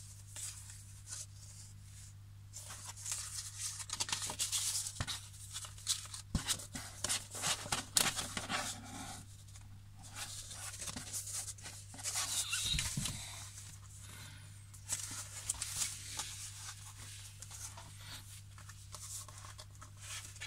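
Paper record sleeves rustling and sliding as 7-inch vinyl singles are handled, a disc slid part way out of its paper sleeve, with small taps and ticks. The handling comes in irregular bursts, busiest through the middle, over a faint steady low hum.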